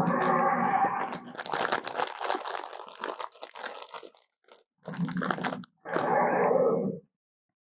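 Edited creature sound effects: crunching and tearing like a monster biting and chewing, between short pitched growl-like calls, with abrupt cuts to dead silence between clips.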